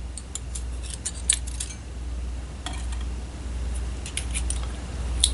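Light, scattered metallic clicks and ticks as the small brass pins of a disassembled pin-tumbler lock are handled and set down, over a steady low hum.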